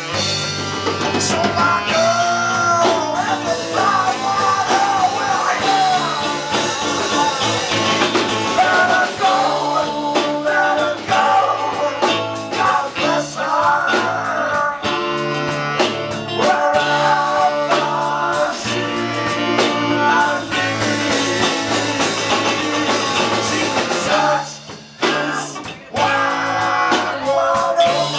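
A live band playing blues-rock: drum kit, electric guitar and saxophone, with singing. The music dips briefly near the end, then carries on.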